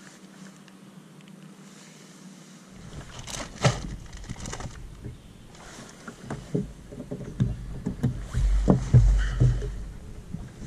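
Scattered knocks and clicks of gear being handled on a bass boat's deck, a storage compartment lid and a spool of fishing line, over a low rumble that swells near the end. The first few seconds hold only a faint hiss.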